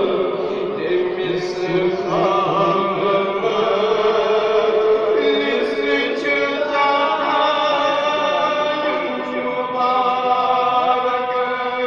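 A man singing a chant-like recitation in long held notes that waver and step from pitch to pitch, without a break.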